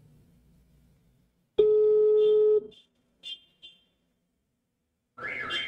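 Telephone ringback tone: a single steady beep about a second long while an outgoing call rings out.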